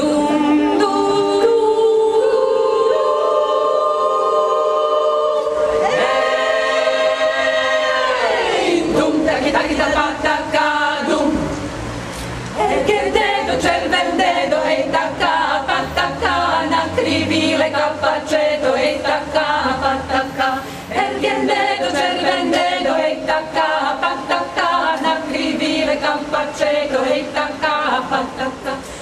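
Women's choir singing a cappella: long held chords at first, a downward slide in pitch about eight seconds in, then a busier, more moving passage from about twelve seconds on.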